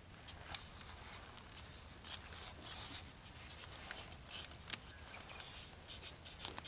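Faint footsteps and rustling through dry grass and reeds, irregular crackles with one sharper click a little before five seconds in.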